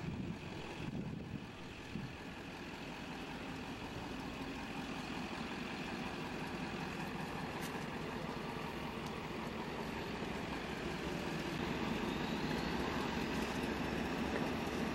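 A motor vehicle engine running steadily, getting gradually louder toward the end.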